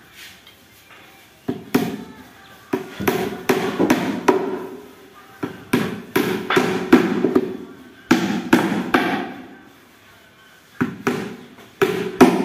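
Hammer driving nails into the wooden top panel of a cabinet: sharp blows in runs of several strikes, with short pauses between the runs.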